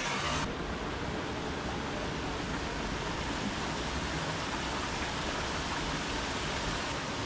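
A creek cascading over rocks at a small waterfall: a steady rush of water.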